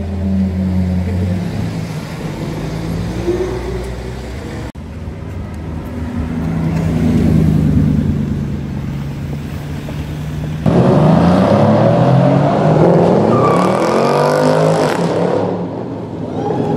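High-performance car engines revving and accelerating, in three clips cut together about five and eleven seconds in. In the middle clip a Bugatti Chiron's quad-turbo W16 holds a steady tone that swells and fades. The last clip is the loudest: an engine revving hard, its pitch swinging up and down.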